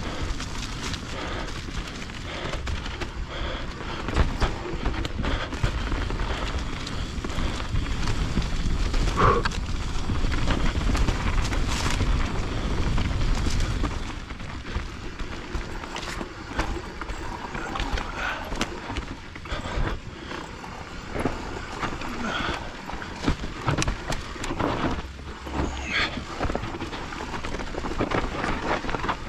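Mountain bike ridden over a rough dirt trail: wind rumbling on the microphone over the noise of the tyres, with many clicks, knocks and rattles from the bike over bumps. The wind rumble is heavier for the first half and eases about halfway through.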